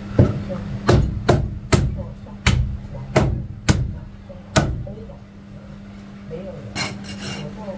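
A heavy Chinese cleaver chopping braised goose on a plastic cutting board: about eight sharp knocks in the first five seconds as the blade cuts through the meat and strikes the board, then a few lighter taps near the end.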